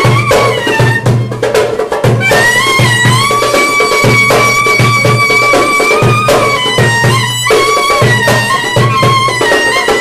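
Live Turkish folk dance music: a metal clarinet playing a held, sliding melody with a violin, over a steady low drum beat.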